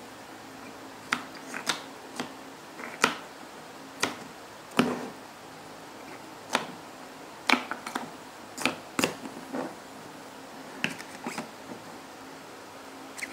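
OILI Luminous mini plastic speed-stacking cups clacking together as they are lifted off two pyramids by hand and nested into one stack. The clacks come as an irregular string of sharp clicks and taps, sometimes in quick pairs.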